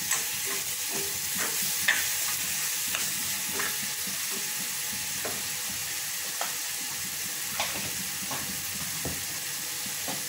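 Onion-tomato masala sizzling in a heavy black iron kadai, with a steel spoon stirring it and scraping and clicking against the pan about a dozen times.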